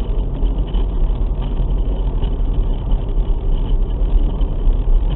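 Car driving through flood water, heard from inside the cabin: a steady rush of water thrown up by the wheels, over a deep low rumble.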